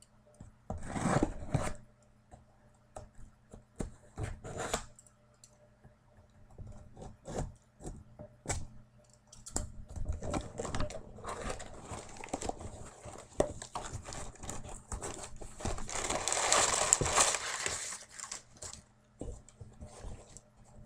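Packaging being torn open and crinkled by hand, with scattered clicks and rustles and a longer, louder spell of crinkling about sixteen seconds in.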